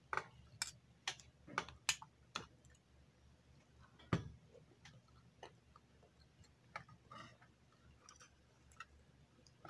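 Metal spoon and fork clicking against a bowl while eating: a quick run of sharp clinks about every half second over the first two seconds, one loud clink about four seconds in, then fainter scattered taps.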